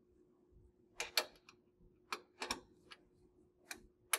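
Ratchet wrench tightening the nuts on a belt positioner's steel mounting bracket: a few sharp, scattered clicks, some in quick pairs, about a second apart, over a faint steady hum.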